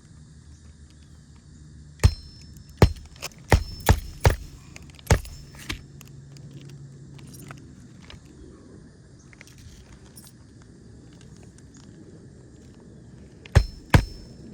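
Nails being driven into asphalt roof shingles: a run of about eight sharp, irregularly spaced strikes with a brief metallic ring over about four seconds, then a pause, then two more strikes near the end.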